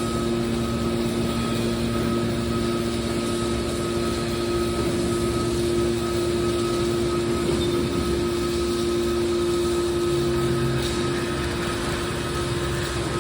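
Hydraulic power unit of a scrap metal car baler running with a steady hum, a lower tone joining about ten seconds in.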